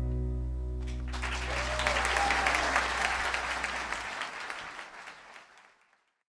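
The last chord of a song on acoustic guitar ringing out, with audience applause starting about a second in and fading away to silence near the end.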